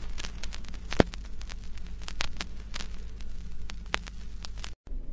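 Crackling static: a steady hiss over a low hum, dotted with irregular sharp pops, the sharpest about a second in. It cuts out abruptly just before the end.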